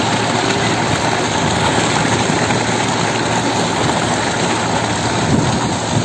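Water gushing steadily from a tubewell's outlet pipe and splashing into a concrete tank.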